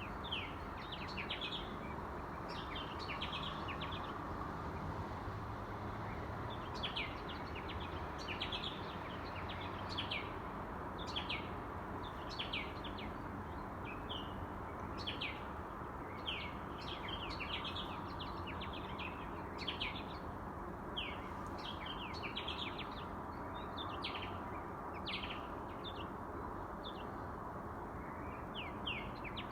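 Birds chirping in the dawn chorus: clusters of short, quick, downward-sliding chirps about every second, over a steady low city hum.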